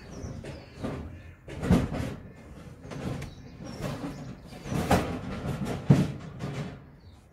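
Irregular bumps, knocks and rustling of someone moving about and handling things inside a cramped loft space overhead, through a ceiling hatch. The loudest knocks come about two, five and six seconds in.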